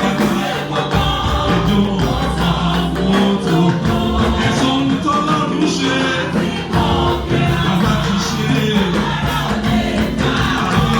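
A church choir singing a gospel anthem over instrumental accompaniment with a steady beat.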